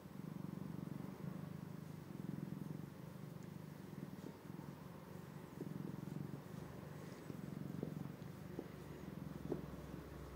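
Black-and-white domestic cat purring steadily while being stroked, the purr swelling and easing with each breath about once a second.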